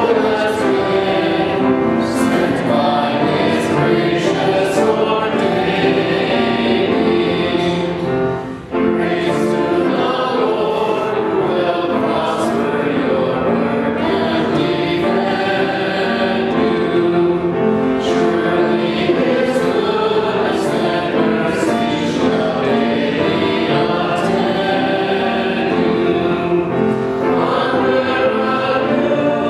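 A choir of voices singing a hymn, with a brief break between phrases about eight and a half seconds in.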